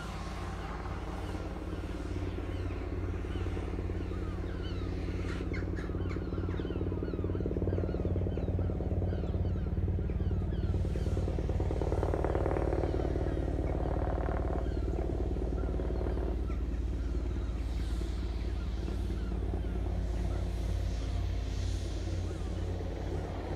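Coastguard helicopter in flight, its rotor beating with a steady low pulse that grows louder over the first several seconds as it approaches.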